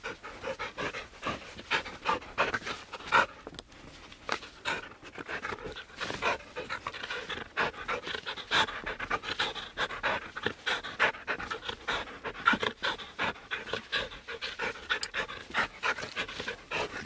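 A dog panting rapidly, a fast, uneven run of short breaths.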